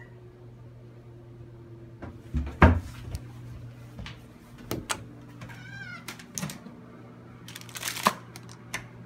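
A domestic cat gives one short, wavering meow a little past halfway, among several sharp knocks and thumps, the loudest just before three seconds in. A steady low hum runs underneath.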